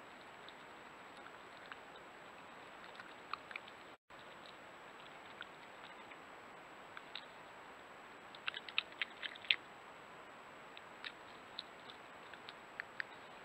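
European badger foraging and chewing in wood chips close to the microphone: scattered small crunches and clicks, with a quick run of louder ones about eight and a half to nine and a half seconds in, over the trail camera's steady hiss.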